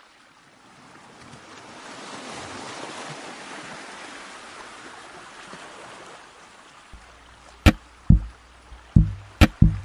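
Intro of a pop song: a soft hiss like rushing water swells and fades, then a bass note and sharp drum hits come in about seven seconds in.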